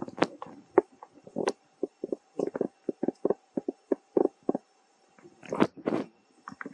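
Baby monkey giving a run of short, repeated cries, about two to three a second, while it struggles against being held, with a denser cluster of calls near the end.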